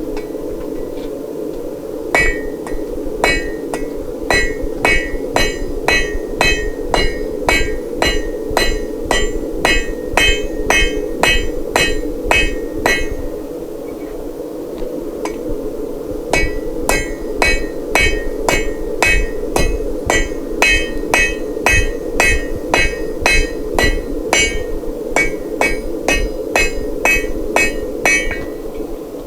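Blacksmith's hammer striking hot half-inch square steel on an anvil, about two ringing blows a second. The blows come in two long runs with a pause of a few seconds between them, over a steady drone.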